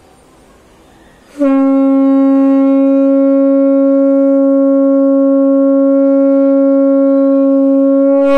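A conch shell (shankh) blown in one long, steady note starting about a second and a half in and held at an unchanging pitch for about seven seconds: the plain tune, blown constantly from start to end.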